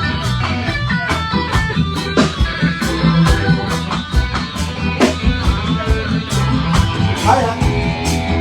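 Live reggae band playing at a sound check: electric guitar notes over a steady bass line and drum kit, with an even run of hi-hat strokes.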